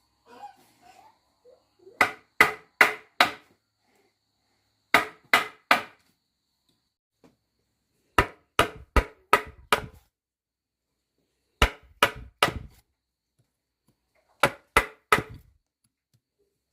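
A hand tool striking wood in quick runs of three to five sharp blows, with short pauses between the runs.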